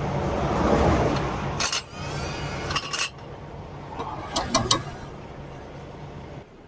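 Metal tools clinking against truck parts several times over a steady mechanical hum, which is loudest in the first few seconds.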